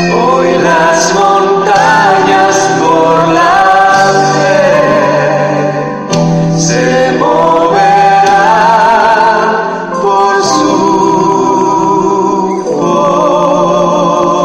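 A Christian gospel song: voices singing a melody over instrumental accompaniment.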